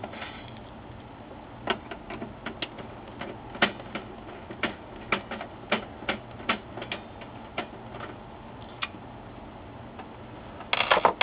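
Irregular sharp metallic clicks and ticks of a screwdriver working the small screws that hold the interface board in the HP LaserJet 4P's sheet-metal frame, then a short, louder clatter near the end.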